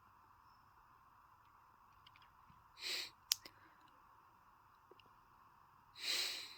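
One sharp click, about three seconds in, between two short breathy rushes of noise about three seconds apart, the second near the end being the loudest, over a faint steady hiss.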